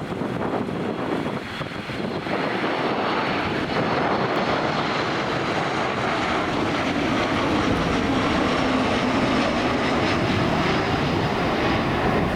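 Jet airliner coming in to land, its engine noise building to a loud, steady rush about two seconds in, with a faint high whine that falls slowly in pitch, over wind on the microphone.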